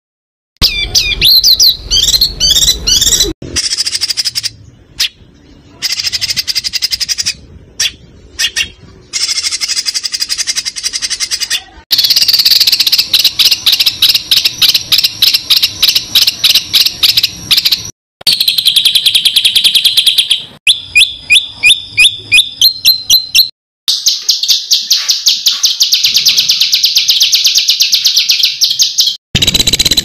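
Recorded songbirds, several clips joined one after another with abrupt cuts: whistled phrases, then long, fast rattling trills of sharp high notes and runs of repeated rising chirps.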